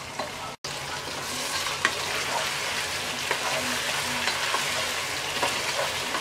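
Chicken with onions, spices and tomato paste frying in oil in a pot, sizzling steadily while being stirred, with scattered light clicks of the spoon against the pot. The sound drops out for an instant just over half a second in.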